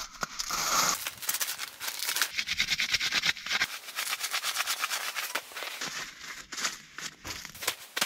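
Plastic wrappers of small disposable heat packs being torn open and crinkled, with the paper pads rustling as they are pulled out and pressed onto a floor mat.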